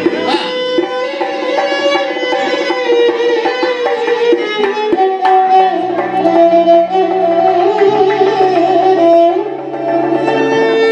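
Electric violin playing a melody of held notes with slides and ornaments, over low held accompanying notes that change every second or two.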